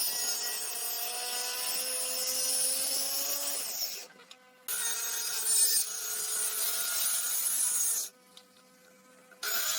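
A power tool working wood: a continuous rasping hiss over a steady motor hum. It cuts out abruptly twice, about four seconds in for under a second and again about eight seconds in for just over a second.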